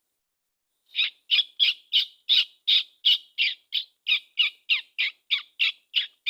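A bird calling a fast, even series of short notes, about three a second, each sliding downward in pitch, starting about a second in.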